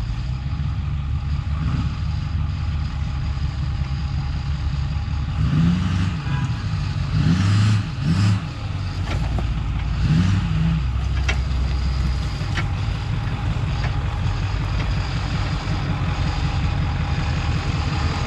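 Lifted Ford F-450 pickup's engine running as the truck crawls slowly over a rocky trail, with the throttle pressed in three surges around the middle, each rising then falling in pitch. A few sharp clicks come through after the middle surge.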